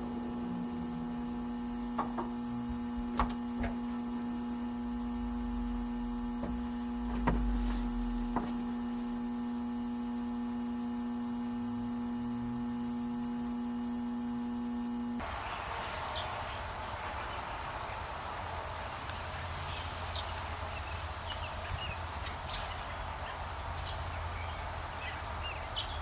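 Home central air conditioning running: a steady electrical hum with several pitched overtones and a few light clicks. About fifteen seconds in it switches abruptly to a different steady sound, an even rushing hiss over a low hum with a high steady whine on top.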